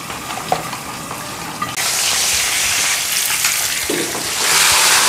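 Pieces of chital fish sizzling in hot oil in a wok: a steady frying hiss that starts suddenly about two seconds in and grows louder near the end. Before it there are only a few soft squelching clicks from a hand mixing marinade in a plastic bowl.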